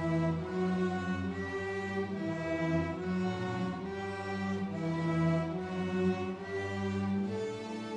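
Beginner student string orchestra (violins, cellos and double basses) bowing a slow melody together in three-four time, with held notes that change every half second or so.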